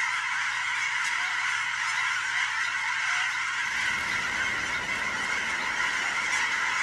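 A large flock of geese honking in flight, a dense chorus of many overlapping calls without a break.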